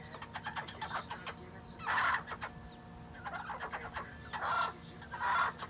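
Hen calling: one loud call about two seconds in and two more close together near the end, with softer calls between.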